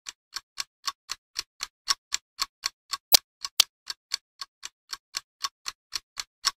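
Edited-in clock-ticking sound effect: sharp, even ticks about four a second over dead silence, with two louder ticks a little past halfway.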